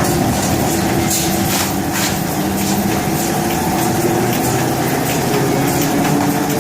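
Industrial machine running with a steady, loud mechanical hum whose tones shift in pitch now and then, over a constant hiss, with a few short hissing bursts in the first two seconds.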